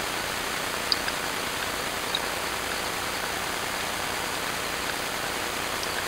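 Steady hiss of a trail camera's microphone and recording noise, with a couple of faint, short high chirps or ticks about a second and two seconds in.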